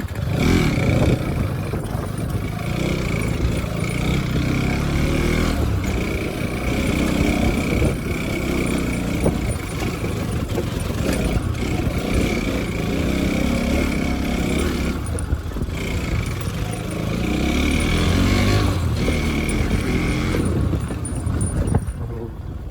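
Motorcycle running steadily on the move, its engine and road noise heard from the rider's position.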